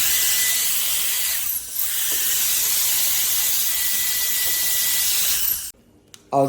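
CCV cordless electric air duster's high-speed fan running, with a steady rush of air and a thin high whine. It dips briefly about one and a half seconds in, then winds down and stops near the end.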